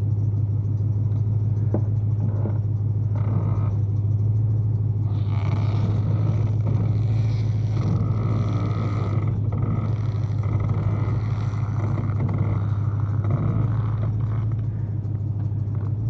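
Steady low machine hum, with rustling and scraping work noises for several seconds in the middle.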